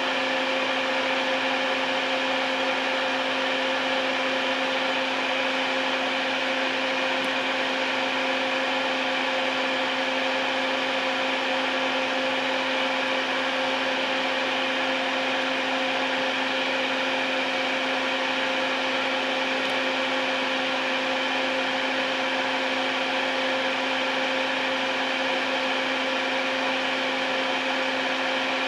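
Electric fan running steadily, a constant motor hum with rushing air, switched on to ventilate the fumes of plastic cement.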